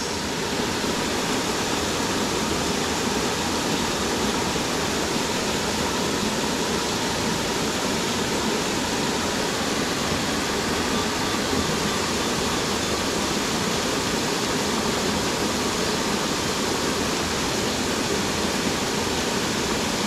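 Waterfall running steadily: a constant, even rush of falling water with no breaks.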